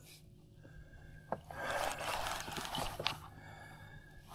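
A person breathing hard while straining against a strong fish, with one long breath starting about a second and a half in, and a couple of faint clicks.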